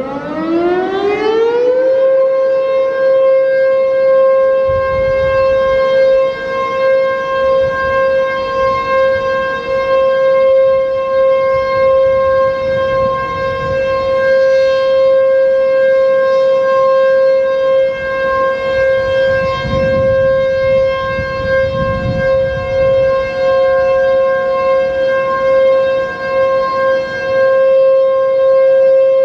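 H.O.R. Super-Sirex 50 HP outdoor warning siren finishing its wind-up, its pitch rising to full speed about two seconds in, then holding a steady alert tone. A fainter second siren at a slightly higher pitch comes in briefly past the middle.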